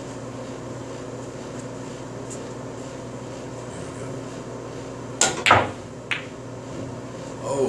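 A pool cue strikes the cue ball, and a moment later the cue ball clicks into an object ball, about five seconds in. A lighter knock of ball on ball or cushion follows, over a steady low hum of room tone.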